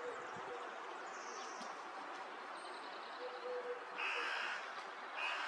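Outdoor birdsong: a low hooting coo repeated in short phrases, thin high chirps from a small bird, and two short harsh calls, the loudest sounds, about four seconds in and near the end, over a steady hiss.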